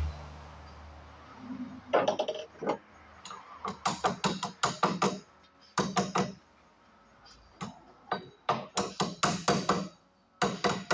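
Quick series of sharp metallic taps and knocks, each with a short ring, from hand tools striking metal gearbox parts. They start about two seconds in and come in fast clusters.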